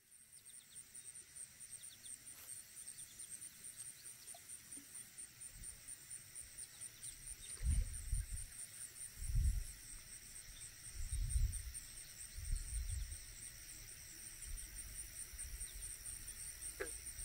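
Insects trilling outdoors: a steady, high, fast-pulsing chirr that holds throughout. A few low rumbles come through in the middle.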